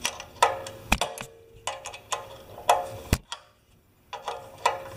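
A hand wrench clicking and clinking on a carburetor nut as it is tightened back up, with a handful of sharp metallic ticks at uneven spacing.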